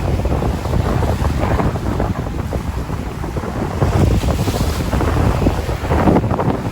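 Waves washing on a seashore with wind buffeting the microphone: a steady rush of noise, heaviest in the low rumble, that swells about four seconds in and again near six seconds.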